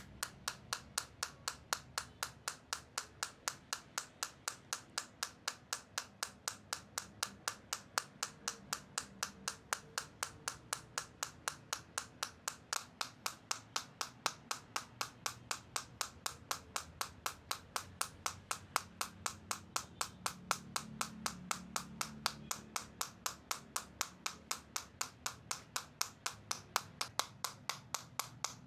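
Rhythmic percussive massage: steady, evenly spaced slapping strikes on the body, about three to four a second, with no break.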